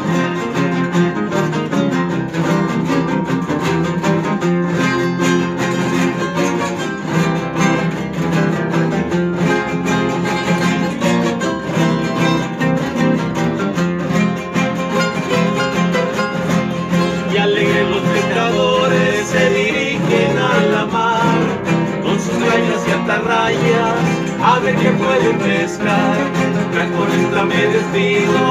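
Instrumental interlude of a chilena played by a string trio: acoustic guitars strumming a steady accompaniment while a picked melody line runs over it, with no sung verse.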